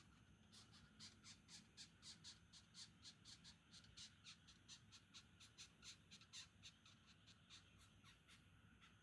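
Longhorn beetle stridulating: a faint, quick series of raspy squeaks, about three or four a second, thinning out near the end.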